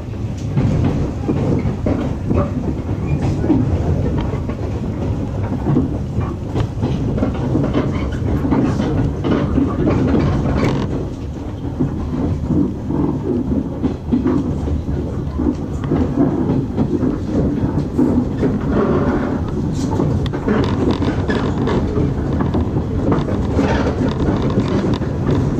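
An electric train running, heard from inside the carriage: a steady low rumble with the irregular clatter of wheels over rail joints and points.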